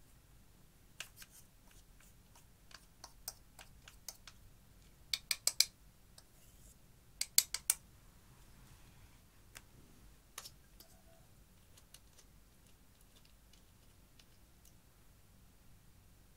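Sharp clicks and taps from a metal pick and a plastic eyeshadow compact as pressed eyeshadow is broken up over a glass dish: scattered single clicks, with two quick runs of about four loud taps around five and seven seconds in.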